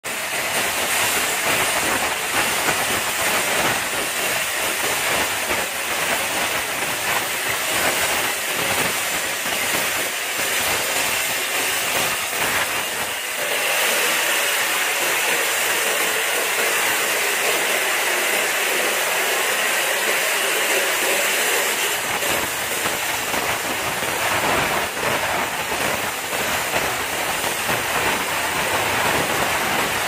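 Steam jetting out of a valve on top of a vertical steam boiler with a loud, steady hiss, shifting in tone twice.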